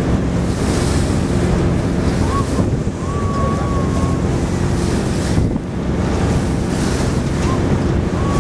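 Small car ferry underway on choppy water: a steady low engine drone under wind buffeting the microphone and water rushing and splashing against the hull.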